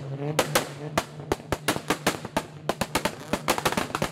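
Car engine held on a two-step launch-control rev limiter at steady revs, its exhaust firing rapid, loud pops and bangs that come faster after about three seconds in.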